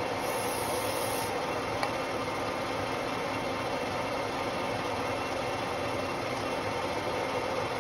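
Metal lathe running steadily, its carbide tool turning the copper bars of an electric-motor commutator. About a second in, a short hiss of WD-40 aerosol sprayed onto the cut as cutting fluid.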